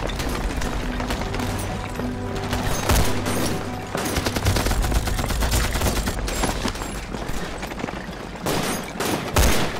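Battle gunfire: dense, rapid volleys of shots, with heavier single shots about three seconds in and near the end.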